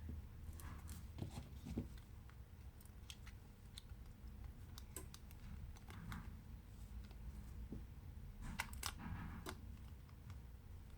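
Scattered small clicks and light scrapes of tools and parts being handled on a smartphone under repair, over a low steady hum. A denser cluster of clicks with a short scrape comes near the end.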